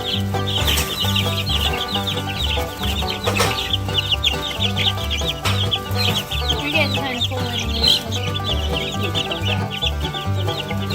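A brood of two-week-old chicks peeping, many short high cheeps overlapping without a break, over background music with a steady bass line.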